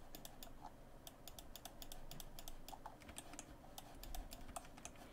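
Faint, irregular clicking of a computer mouse and keyboard: mouse-button clicks, scroll-wheel notches and key presses.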